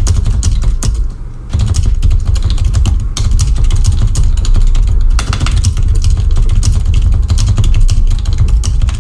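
Fast typing on a computer keyboard: a rapid, continuous stream of key clicks, with a short pause about a second in.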